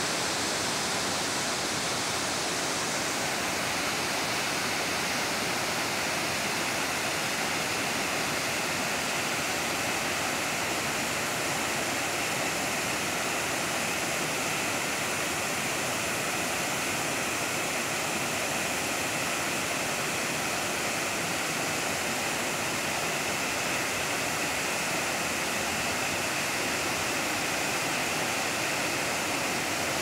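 River water rushing steadily over a series of rocky waterfall cascades and rapids.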